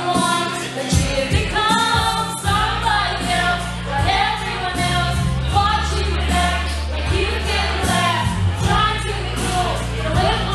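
A woman singing karaoke into a microphone over an amplified backing track with a steady bass line.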